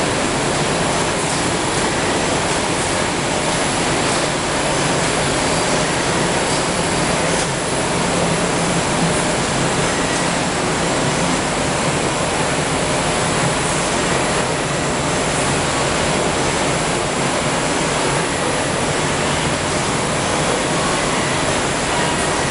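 Steady, even mechanical noise of a running Swiss roll manufacturing line: conveyor belts, motors and blowers working together without a break.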